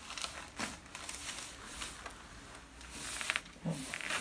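Chiropractic adjustment with the patient lying face up: soft rustling and shifting on the table, then a quick cluster of short, sharp joint pops a little over three seconds in.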